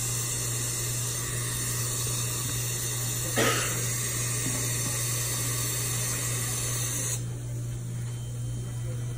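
Steady hiss and hum of dental equipment, with a brief louder sound about three and a half seconds in; the higher part of the hiss cuts off about seven seconds in.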